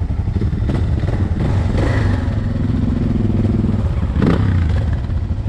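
Motorcycle engines idling with a steady low rumble. A second engine note joins for about a second and a half midway, and a single clunk comes about four seconds in.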